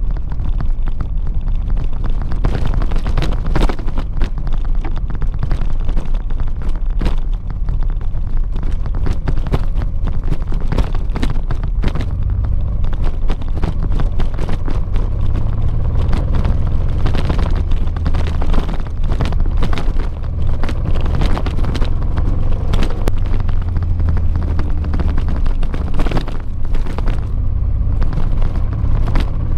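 Honda Transalp's V-twin engine running steadily under way on a gravel road, with frequent short knocks and rattles from the rough surface.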